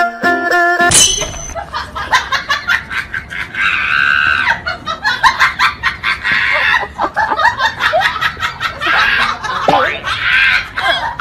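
Rapid rattling clicks from a battery-powered toy soldier's gun, with laughing over them. They start about a second in.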